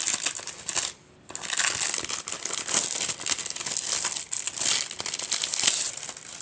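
Packaging crinkling as it is handled and opened, continuous apart from a brief pause about a second in.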